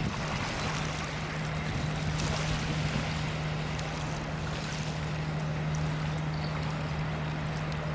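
Low, steady hum of a ship's engine running as the freighter and its pilot boat head out, heard over a steady background rush.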